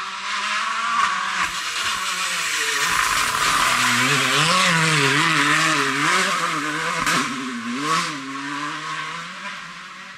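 Rally car passing at stage speed, its engine revs swinging up and down through gear changes and the bend, over loud tyre noise on the damp lane. A couple of sharp cracks come near the end as it pulls away and fades.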